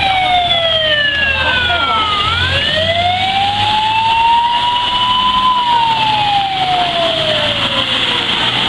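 Fire engine siren wailing, its pitch sweeping slowly: falling, rising for about three seconds from a little past two seconds in, then falling again.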